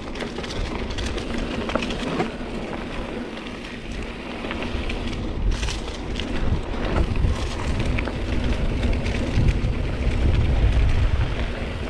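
Mountain bike rolling down a loose dirt trail: tyres crackling over dirt and gravel, with frequent small clicks and rattles from the bike. A heavier low rumble builds from about nine seconds in to near the end.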